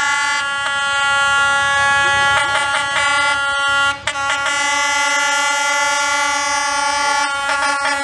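Locomotive air horn blaring in one long, steady, extremely loud blast, with a brief break about four seconds in.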